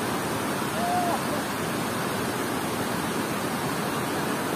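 Heavy water pouring over a dam spillway and churning in the river below: a steady, even rush. A brief clear tone sounds once about a second in.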